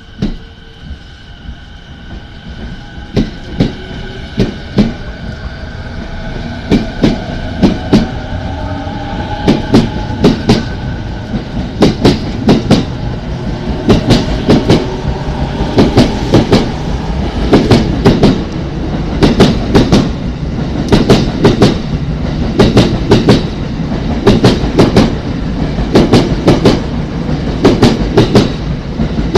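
JR East E217-series electric train pulling away and gathering speed: the traction motor whine rises in pitch over the first ten seconds or so. Wheel clacks over the rail joints grow louder and come faster as the cars pass close by, ending in a steady run of paired clacks.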